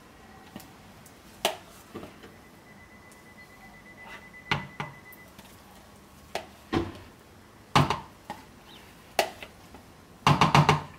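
Knocks and clinks of soap-making utensils and containers being handled: a string of separate taps spread out, then a quick rattling flurry near the end.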